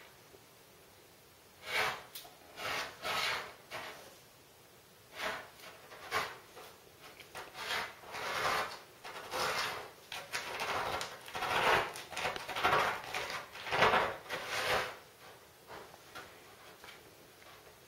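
A cat scratching and raking granular cat litter in a plastic litter tray with its paws: a string of short, scratchy rasps in quick bursts, starting about two seconds in and stopping a few seconds before the end.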